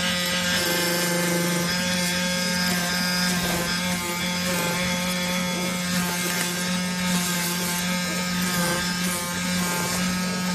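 CNC oscillating knife cutter running steadily, its vibrating blade cutting through cardboard, with a strong low buzz.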